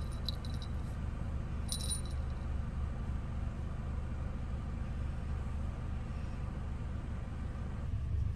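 A small bell on a cat's collar jingling twice, briefly, about two seconds apart, as the cat moves, over a steady low hum.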